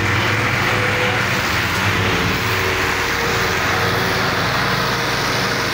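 Diesel engines of tractors, a Fiat 640 and Massey Ferguson 260s, running steadily under heavy load as they tow a truck stuck in mud on a chain.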